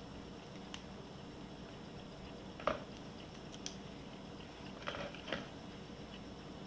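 A few faint, soft clicks and taps, about five, spread out against a quiet room: a can of sweetened condensed milk being emptied into a pan of sour cream.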